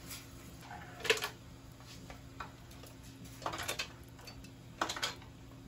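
Metal kitchen tongs clicking against a pot and the plastic bottle parts in its boiling water: a few short sharp clicks about a second in, around three and a half seconds and around five seconds, over a low steady hum.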